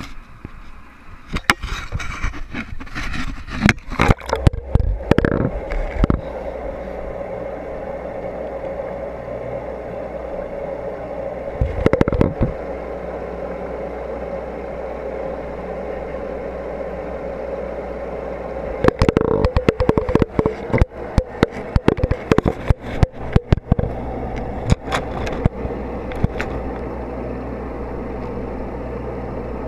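A GoPro underwater in an aquarium picks up the steady hum of the tank's running equipment through the water. Clusters of knocks and scrapes come from the camera bumping against the glass and decor as it is moved: in the first few seconds, briefly about twelve seconds in, and for several seconds past the middle.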